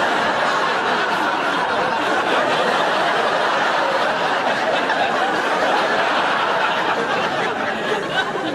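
Studio audience laughing, a steady, dense wash of many people's laughter.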